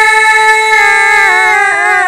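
Two women singing a Red Dao folk duet, holding a long note together, with the pitch dipping briefly near the end.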